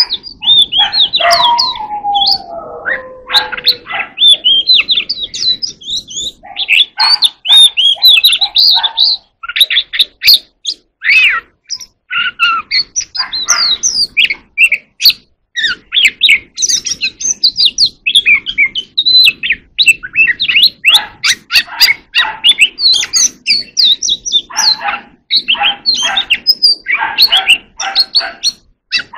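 Oriental magpie-robin singing a long, varied run of whistled phrases and quick chirps with brief pauses, including a falling note early in the song.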